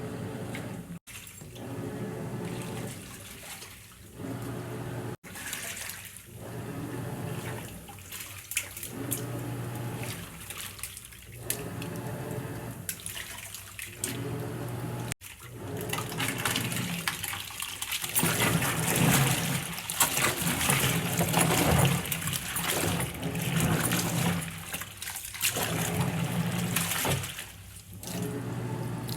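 Water pouring and splashing in repeated surges about every two seconds, as soaked laundry is lifted and wrung out over a tub. The surges grow louder in the second half.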